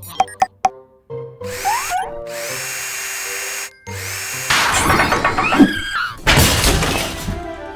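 Cartoon music with busy sound effects of the robot mechanicals at work: a few sharp clicks, a rising whoosh and a steady whirr, then a louder clattering, drill-and-crash-like stretch near the end.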